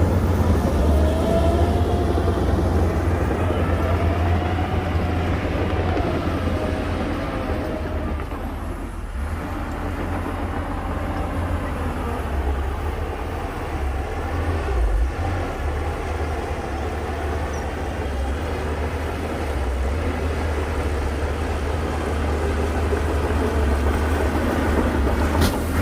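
Heavy earthmoving machine's diesel engine running under load: a steady deep rumble, with a faint wavering whine over it in the first few seconds.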